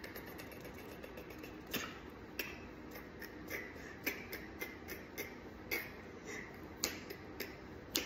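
A string of faint, sharp clicks, uneven in spacing, about one or two a second.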